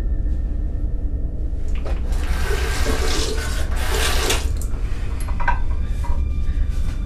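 Water running from a bathroom sink tap for about two seconds, followed by a few small knocks at the basin.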